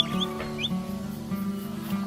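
Background music with plucked guitar, with a few short, high chirps from a small animal near the start.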